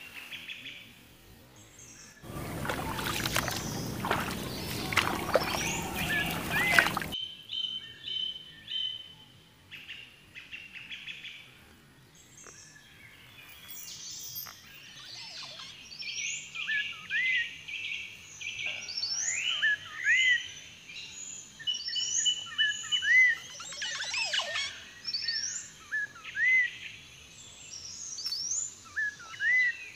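Birds calling in the trees: many short chirps and quick whistled notes that sweep up and down, busiest in the second half. A couple of seconds in, about five seconds of rushing noise starts and stops abruptly.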